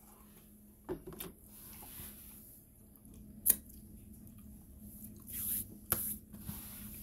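Handling noise from a hand-held phone: a few sharp clicks and taps, the loudest about halfway through, and a short rustle shortly before the last click, over a steady low hum.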